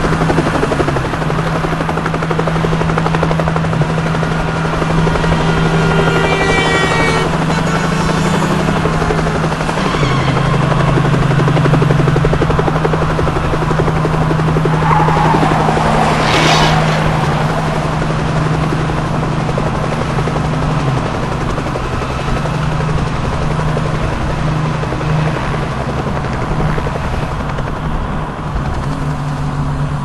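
Car-chase sound-effect mix: a steady helicopter-like rotor chop over a vehicle engine drone, whose pitch drops about ten seconds in. A high squealing slide comes around seven seconds in, and a loud rushing sweep about sixteen seconds in.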